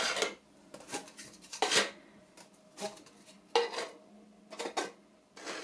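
Thin plastic cups set down one by one, upside down, on a wooden tabletop: about five short, light clacks at irregular intervals.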